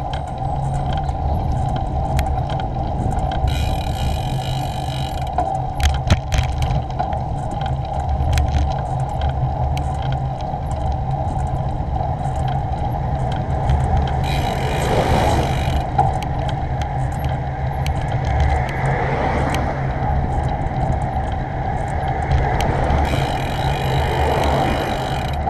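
A bicycle ridden along a road, heard from a GoPro mounted on it: a steady rumble of tyres and wind with many small clicks and rattles. Cars pass about halfway through and again near the end.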